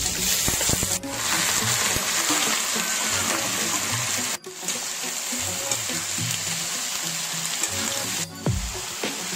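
Potato and broccoli pieces frying in hot oil in a wok: a steady sizzle with background music under it. The sizzle breaks off sharply three times, about a second in, midway and near the end.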